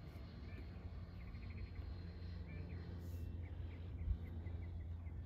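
Faint outdoor ambience: a low steady rumble with small bird chirps scattered through it, and one short bump about four seconds in.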